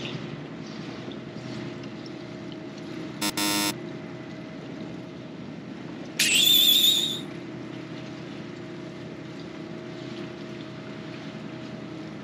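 A fishing boat's engine and deck crane running steadily with a low hum, with water splashing against the hauled set net. Two short added sound effects cut in, a brief buzz about three seconds in and a brighter, higher one about six seconds in.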